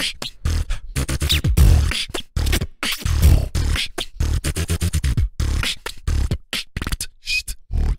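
A beatboxer performing a fast freestyle beat into a microphone: deep kick-drum sounds under a dense run of sharp snare and hi-hat clicks, with only brief gaps.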